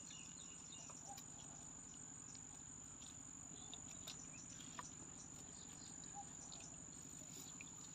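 Faint, steady high-pitched drone of crickets or similar insects, with a few light ticks scattered through it.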